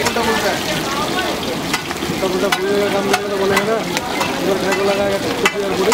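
Hot oil sizzling steadily around a whole masala-coated fish shallow-frying on a flat iron tawa, with sharp spatter pops every second or so.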